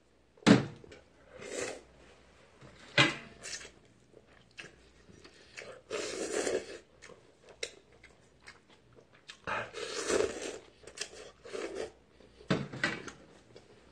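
A man slurping and chewing ramen noodles in bouts, with two sharp knocks in the first three seconds, the first as a glass soju bottle is set down on the table.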